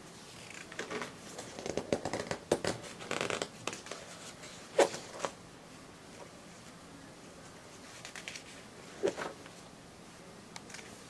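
Pages of a ring-binder catalog being handled and turned: paper rustling for a couple of seconds, then a few sharp slaps as pages settle, around 5 and 9 seconds in.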